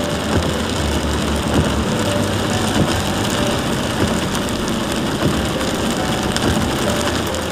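Heavy rain beating on a car's roof and windshield, heard from inside the cabin, over the car's engine running at speed. A steady noise throughout.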